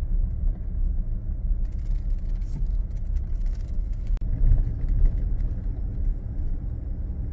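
Steady low rumble of a car's engine and tyres on the road, heard from inside the cabin while driving, with a couple of louder bumps a little after four seconds in.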